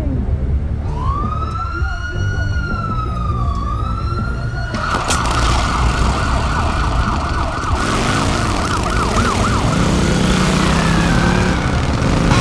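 Police-style siren: a slow wail that sweeps up and down, switching about five seconds in to a fast warbling yelp, over a low steady rumble.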